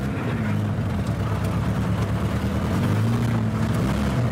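Classic Lada sedan's four-cylinder engine running under load as the car drives off, its note dipping and climbing a few times. The engine is running on pistons whose burn holes were patched with epoxy and glue.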